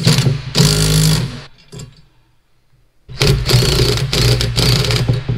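DeWalt cordless impact wrench driving bolts into steel brackets. It gives a short run in the first second or so, then a longer run starting about three seconds in.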